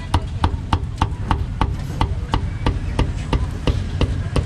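Metal spatula chopping grilled meat strips into pieces against a hot griddle plate, a quick steady run of sharp knocks about three a second.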